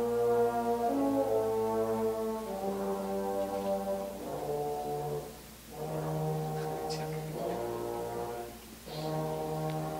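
A children's concert band playing slow, held brass-led chords in phrases of a few seconds, with short breaks between phrases about five and a half and nine seconds in.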